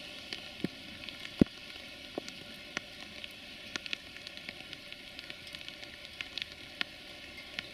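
Steady rain hissing, with scattered drops ticking sharply close by and one louder drop about a second and a half in.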